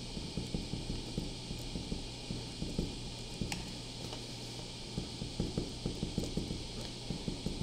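Pen writing on paper: many quick, irregular short strokes and taps of the tip against the sheet, over a steady low hum. One sharper click about three and a half seconds in.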